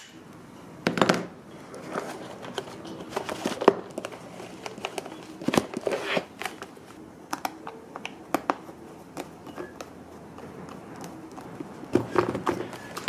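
Handling noise from work on an EPP foam model wing: scattered small clicks, taps and rustles from hands and a small screwdriver, with louder clusters about a second in and near the end.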